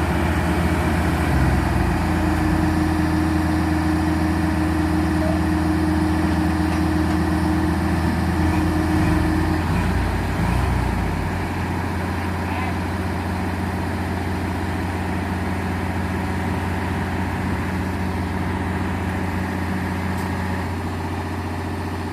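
Heavy diesel engine of construction equipment running steadily with a low hum, stepping down to a quieter, lower run about ten seconds in.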